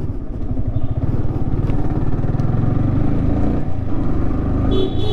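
Yamaha R15 V3's 155 cc single-cylinder four-stroke engine running, a rapid even pulsing exhaust note.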